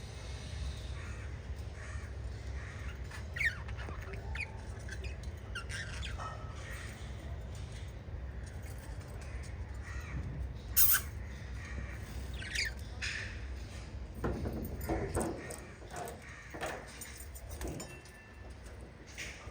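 Pet budgerigars chirping and squawking now and then, with one sharp, loud call about halfway through and a busier run of calls in the second half, over a steady low hum.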